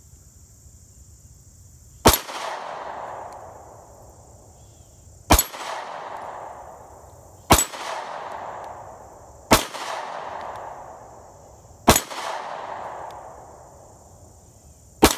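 Six shots from a Beretta Nano 9mm pistol firing 124-grain Remington Ultimate Defense rounds, spaced two to three seconds apart. Each shot is followed by an echo that dies away over a second or two, and the last comes right at the end. Crickets chirr steadily behind.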